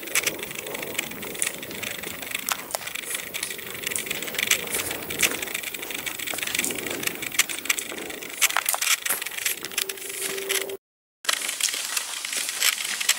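Footsteps crunching on a gravelly dirt trail: a run of irregular crunches and small stone clicks. The sound cuts out for a moment about eleven seconds in, and the crunching picks up again after the break.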